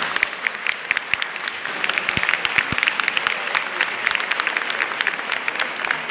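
Large audience applauding steadily: the dense patter of many hands clapping at once.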